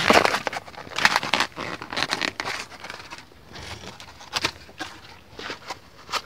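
Handling noise: a run of rustles, scrapes and short clicks as a hand moves the recording phone about and rummages among loose electrical parts. It is loudest at the start and thins out later.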